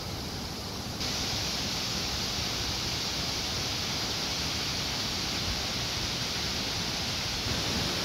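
Steady rushing of a wide multi-tiered curtain waterfall, Tinuy-an Falls, falling into its pool. The noise gets louder and brighter about a second in.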